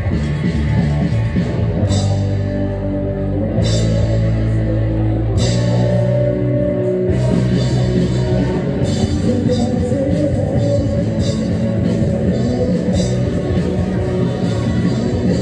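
A rock band playing live: distorted electric guitars and a drum kit with cymbals, and a girl singing over them.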